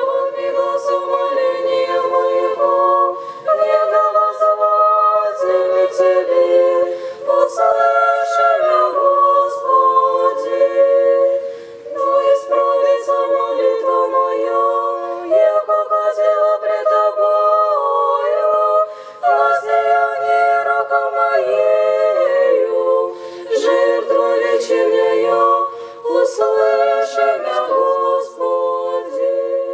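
Orthodox church choir singing a cappella in several voice parts, in phrases of a few seconds separated by short breaks.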